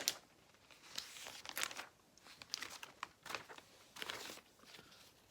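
Small plastic Lego pieces being handled at a table: scattered faint clicks and rustles that come and go in short bursts.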